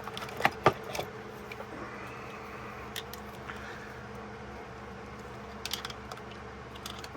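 Small hard objects clicking and knocking as they are handled, a few sharp clicks about half a second to a second in and more scattered later, over a steady low hum.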